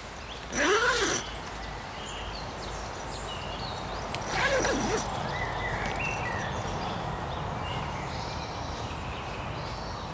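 A loud, harsh animal call sounds twice, about four seconds apart, each rising and then falling in pitch. Small birds chirp faintly over a steady outdoor background.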